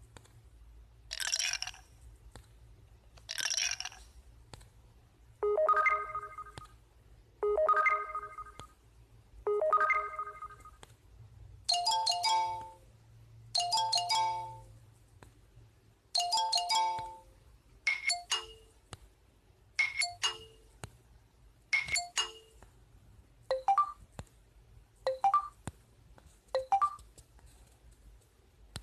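LG K7 Android smartphone notification tones played one after another: short electronic chimes and dings about every two seconds. Each tone sounds three times before a different one starts.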